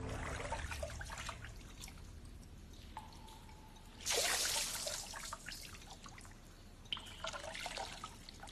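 Water dripping and splashing as a metal bathhouse bowl is dipped into a marble basin and poured over the body, with a stronger pour of water about four seconds in.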